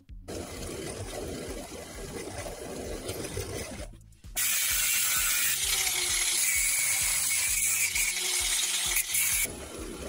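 Angle grinder running against metal for about five seconds, starting about four seconds in: a loud hiss with a steady high whine. Before it, a quieter rasping of metal work, with faint background music underneath.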